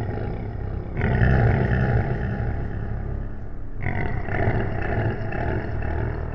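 Low, rough growling of a monstrous beast, a growl sound effect that swells up about a second in and again about four seconds in.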